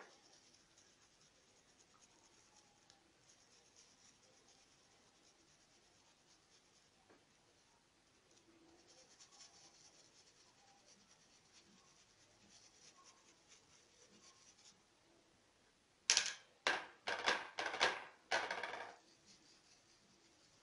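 Stencil brush loaded with sepia fabric paint, rubbed and dabbed through a caravel stencil onto a towel: faint, scratchy brushing strokes, then about two-thirds of the way through a quick run of about six much louder scrubbing strokes.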